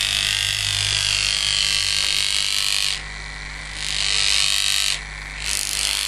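Neodymium magnets in a small PVC conduit tube buzzing against a running washing-machine drain pump motor, rattling in its alternating magnetic field, over the pump's steady low hum. The buzz cuts out briefly twice, about three and five seconds in. The buzz is the sign that the pump's coil is powered and working.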